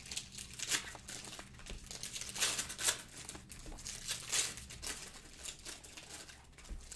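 Irregular crinkling and rustling of plastic wrapper and paper being handled, a quick run of small crackles with a few louder strokes.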